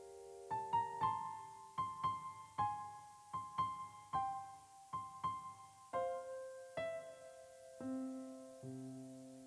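Background piano music: a slow, gentle melody of single notes, each struck and left to fade.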